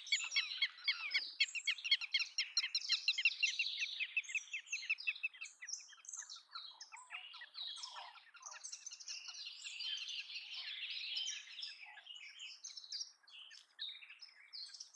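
Birds chirping in many quick, overlapping high notes. The notes are densest in the first few seconds and again in the middle, with scattered calls in between and near the end.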